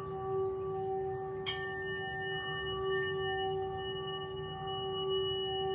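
Sound-healing instruments ringing: a steady, slightly wavering tone with several higher overtones. About one and a half seconds in comes a bright metallic strike, whose high overtones fade over about two seconds.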